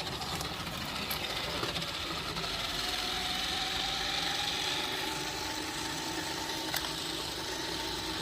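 A toy remote-control Jeep's small electric motor and plastic gearbox whirring steadily as it drives, with a faint whine that rises a little partway through and a couple of light clicks.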